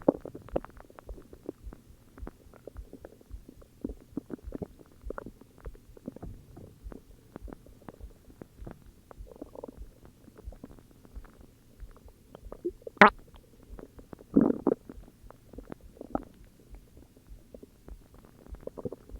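A person's stomach growling and gurgling in a long run of small irregular bubbling pops. There is a sharp click about 13 seconds in and a longer, louder gurgle just after it.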